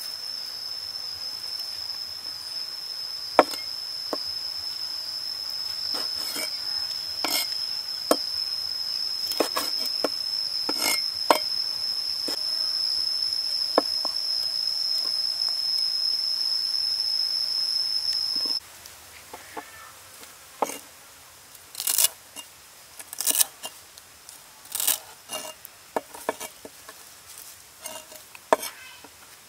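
A steady high insect trill runs under sharp knife strikes on a wooden chopping board as shiitake mushrooms are sliced. About two-thirds of the way through, the trill cuts off suddenly and louder, separate cleaver chops through green onions follow, roughly one every second or so.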